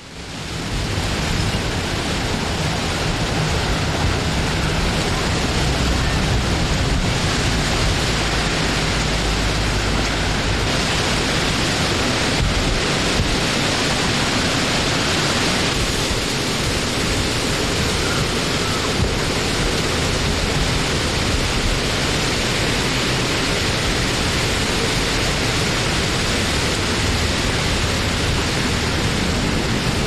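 Wind blowing, a steady unbroken rush that fades in over about the first second and then holds even.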